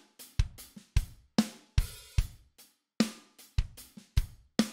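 A multitracked acoustic drum kit playing back a groove: kick, snare and toms with hi-hat and cymbals, as a steady run of sharp hits, each ringing out. The toms are processed by the Bettermaker EQ232D, a Pultec-style EQ plugin, switched on.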